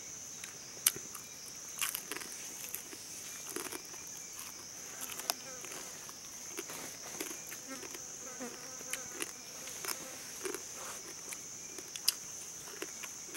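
A steady, high-pitched drone of insects in the forest, with scattered small clicks and knocks over it.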